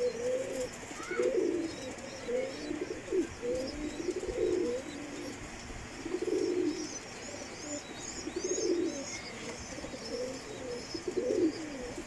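Norwich cropper pigeons cooing, one low coo after another about once a second. A run of high chirps from small birds comes in about seven to nine seconds in.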